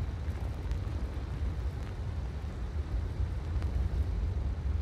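A steady deep rumble with faint scattered crackles.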